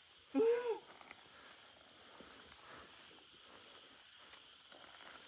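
A single short call, one note rising and then falling in pitch, about half a second in. After it, faint steady night insect noise.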